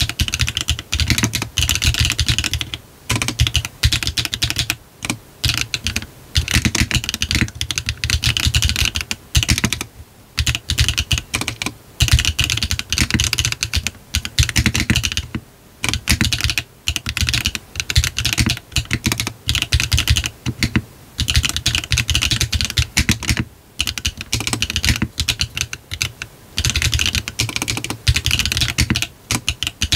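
Continuous fast typing on a GDK DK1-TKL custom mechanical keyboard with a brass bottom case, fitted with HMX 幻紫軸 switches, a 1.6 mm PCB, no foam and a hard bean gasket mount, with cherry-profile PBT keycaps. Rapid key clicks with a deep low thock come in runs broken by brief pauses every second or two.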